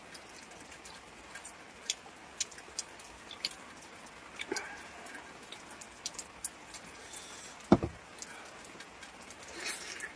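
Scattered light ticks and taps over a quiet background, with one sharp knock about three quarters of the way through.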